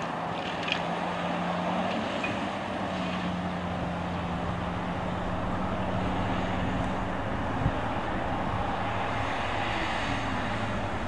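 Large diesel engines of a Komatsu PC2000 mining excavator and a CAT 777G haul truck running steadily, a continuous heavy drone with a low hum.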